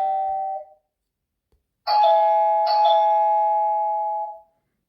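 Two-tone electronic doorbell ding-dong chime from the Tapo doorbell hub's speaker. The last of one chime dies away within the first second. About two seconds in another ding-dong sounds, a higher tone then a lower one, struck again just under a second later, and rings for about two and a half seconds before fading.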